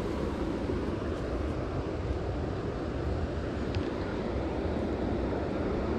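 Steady rush of flowing river water at an outflow, even and unbroken, with one faint click a little past the middle.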